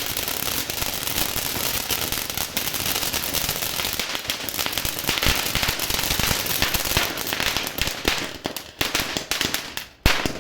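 Ground fountain firework spraying sparks with dense, rapid crackling. The crackle thins out in the last couple of seconds, with one sharp pop near the end.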